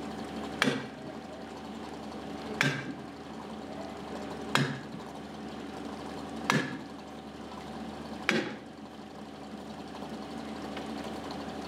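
Heavy hammer blows driving a steel collar into place on top of a timber lock gate: five strikes, about two seconds apart, each with a short metallic ring. A steady machine hum runs underneath.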